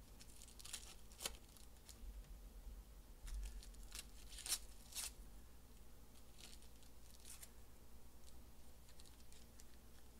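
Foil trading-card pack wrappers being torn open and crinkled by hand: a scatter of short, sharp crackles and rips, the loudest about four and a half seconds in, then lighter crinkling.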